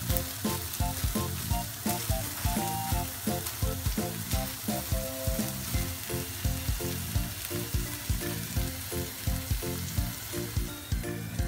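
Raw beef burger patties frying in a nonstick pan: a steady sizzle. Background music with a regular beat plays under it.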